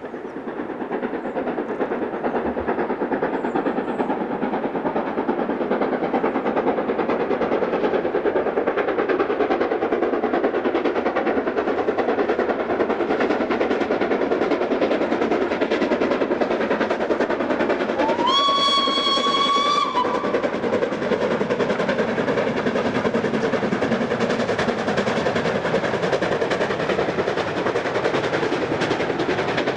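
Steam locomotive running with its train, the noise growing louder over the first few seconds. A little past the middle its steam whistle blows a single note for about two seconds, the pitch rising slightly as it opens.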